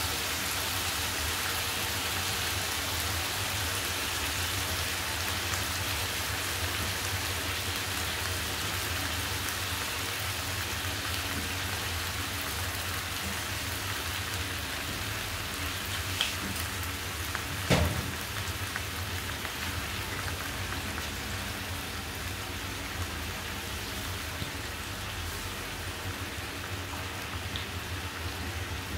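Chicken and onions sizzling steadily in a hot wok, the sizzle easing slightly over time. A single sharp knock about 18 seconds in.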